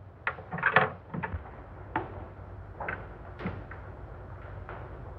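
Scattered light knocks and thuds, several in the first second and then about one a second, over the steady hiss of an old film soundtrack.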